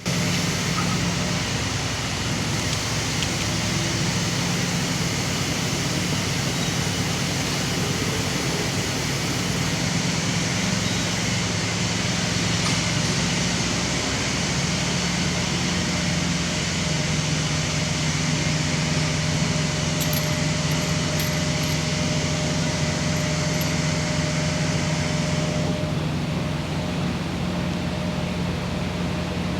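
Steady engine running, a low hum with a broad hiss over it; the hiss falls away about 26 seconds in.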